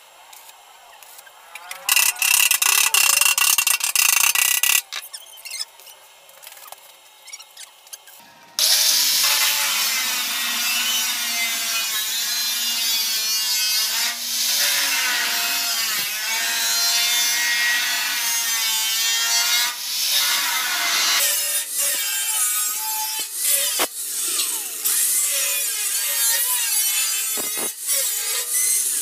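Handheld angle grinder runs briefly about two seconds in. From about eight seconds in it cuts into a steel water tank along a welded seam, its whine wavering in pitch as the disc bites into the metal.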